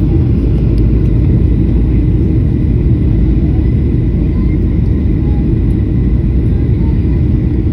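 Steady low roar of a jet airliner heard from inside the cabin: engine and airflow noise with no change in level.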